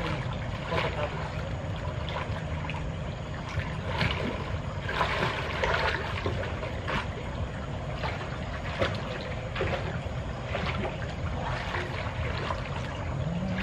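Pool water splashing and sloshing as swimmers paddle and kick through it, in irregular splashes, over a steady low hum.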